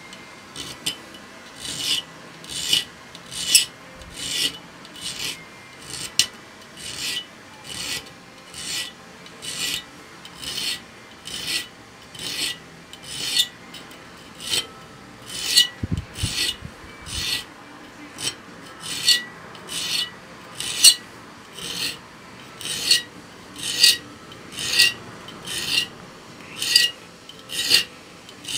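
A 7-inch triangular hand file rasps across the teeth of a Silky Sugoi pruning-saw blade held in a bench vise, sharpening the teeth. It makes regular, even strokes, about one a second.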